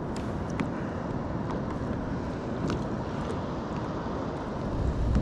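Steady wind rumbling on the microphone out on open water from a kayak, with a few faint ticks and a stronger gust near the end.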